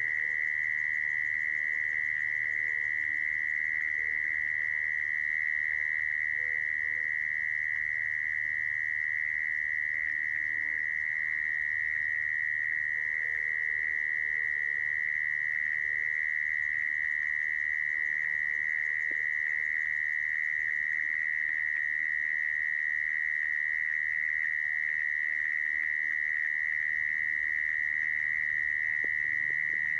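Mole cricket song: one continuous trill held at a single high pitch, steady in level and unbroken throughout.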